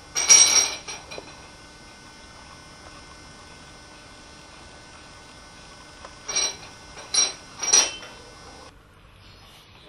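Dishes clinking in short bursts: the loudest just after the start, then three shorter ones between about six and eight seconds in, over a faint steady hum.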